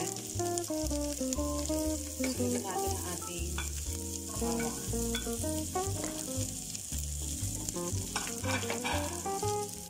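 Chopped onion and garlic sizzling in hot oil in a frying pan, with a wooden spatula stirring and scraping now and then. Background music with plucked notes and a bass line plays along.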